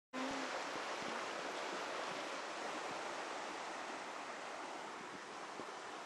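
Steady rush of flowing river water, an even hiss-like rush that eases a little over the seconds.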